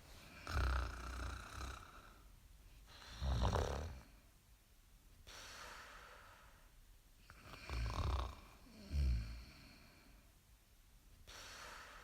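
Snoring: four loud snores, about a second in, at three and a half seconds, and twice close together around eight and nine seconds, with quieter breaths between.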